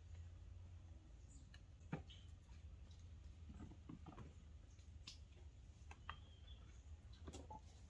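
Near silence: a faint low outdoor rumble with a few scattered faint clicks and knocks, the clearest about two seconds in.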